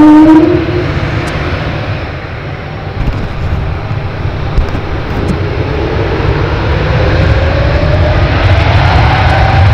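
Embraer 195-E2's Pratt & Whitney geared turbofan engines making their peculiar whale-like moaning tone. A loud rising tone cuts off about half a second in, leaving a low rumble. From about five seconds a new tone slowly climbs in pitch as the rumble grows louder. The uploader suggests the sound comes from the engines moving from idle to accelerating power rather than from the reversers, but is not certain.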